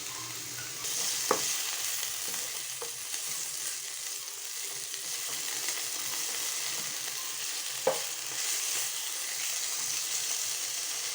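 Parboiled carrots, beans, potato and broccoli sizzling in melted butter in a kadai, a steady hiss that rises a little about a second in. A few sharp knocks of a spatula against the pan come through as the vegetables are stirred, the loudest about a second in and near the end.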